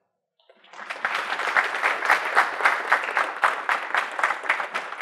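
Audience applauding, starting about half a second in and building quickly to a steady, dense clapping.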